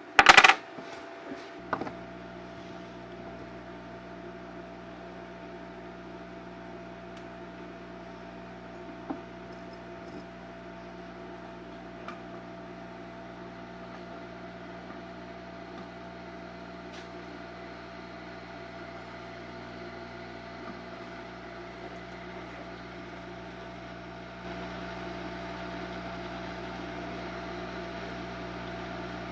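A loud clack, then a hot-air heat gun's fan comes on about two seconds in with a steady hum, heating a CPU to soften the compound or cement under its lid. The hum gets louder about five seconds before the end.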